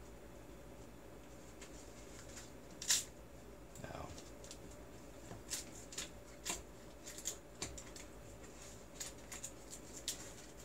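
Faint scattered clicks, taps and rustles of hands handling thin wires and a small box-shaped prototype, with a sharper click about three seconds in.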